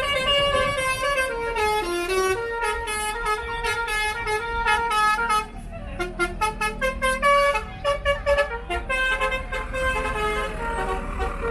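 Bus telolet horn (Basuri multi-tone horn) playing a tune of stepped notes, with a run of quick, short toots about halfway through.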